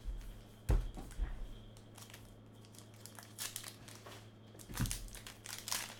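Trading card packs being handled and torn open: foil wrappers crinkling and tearing in irregular rustles, with a single knock just under a second in.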